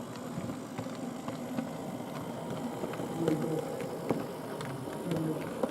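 Model train running round a layout: a small electric motor whirring, with scattered light clicks, against a background murmur of voices.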